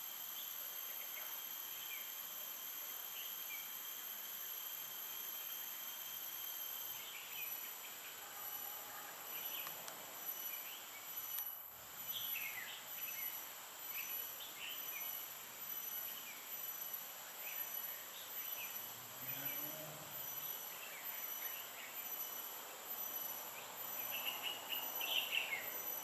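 Steady high-pitched drone of insects, with several tones held together. Short bird chirps come in about a quarter of the way through and grow busiest near the end.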